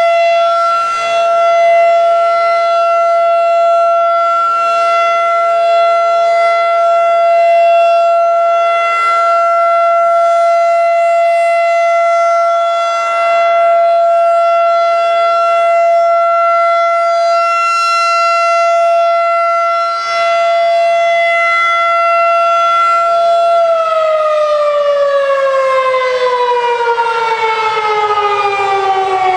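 Federal Signal 2001-DC electromechanical warning siren sounding a steady, unwavering alert tone. About 23 seconds in, the pitch starts falling steadily as the siren winds down at the end of the alert signal.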